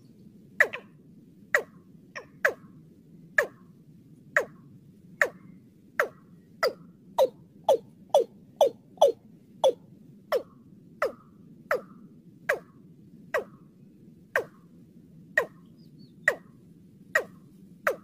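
Watercock (Gallicrex cinerea) calling: a long series of short, sharp notes, each sliding down in pitch, about one and a half a second. The notes come closer together in the middle and then space out again, over a steady low hiss.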